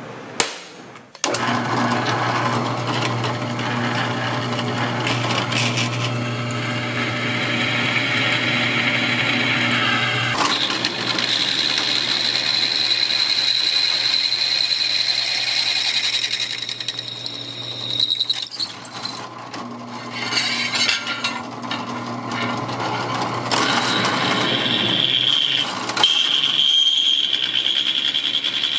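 One sharp metallic strike near the start, a center punch marking a hole in steel plate. Then a drill press runs with a steady motor hum while its bit cuts through 1/4-inch steel plate, with a high steady whine over it during parts of the drilling.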